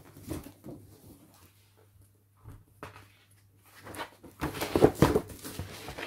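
Large paper pages of a big picture book being handled and turned, a rustling and crinkling of paper in several short strokes that grows loudest about four and a half seconds in.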